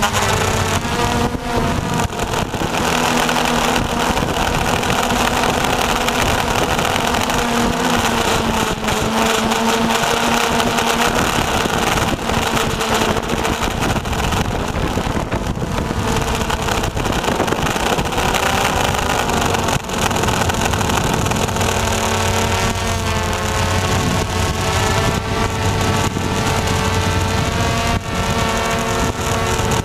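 RC Logger NovaX 350 quadcopter's four brushless motors and propellers buzzing loudly, heard up close from the action camera mounted on the drone itself. The pitch wavers and shifts as the motor speeds change with the drone's manoeuvres, most plainly in the last third.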